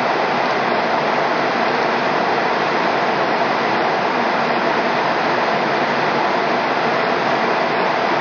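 Steady rushing cabin noise inside an MD-80 airliner in flight: air rushing past the fuselage mixed with the hum of its rear-mounted Pratt & Whitney JT8D turbofans.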